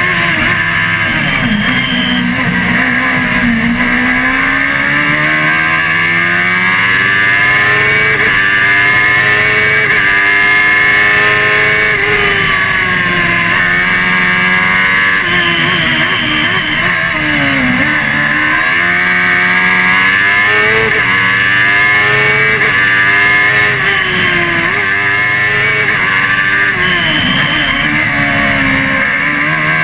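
Race car's engine heard from inside the cockpit during a hillclimb run, revving hard. Its pitch keeps climbing and dropping back through gear changes, and it falls away sharply into the bends, around 2 s, 18 s and 28 s in.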